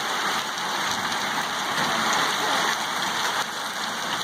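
Heavy rain mixed with hail pelting down: a dense, steady hiss.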